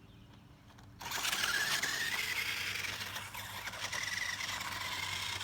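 Remote-control toy car running, starting suddenly about a second in: a high electric motor whine that rises a little, over the scraping rush of its wheels on the ground.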